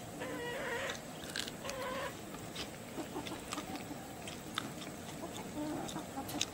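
A hen clucking on and off, with the small clicks of someone chewing tough, chewy roasted cow-hoof skin.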